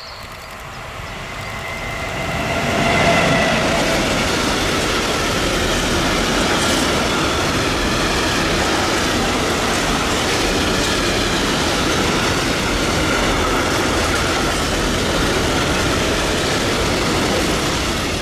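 An electric locomotive approaches and passes at speed, loudest about three seconds in, hauling a freight train of tank wagons. The wagons then roll by in a steady rumble of wheels on rail.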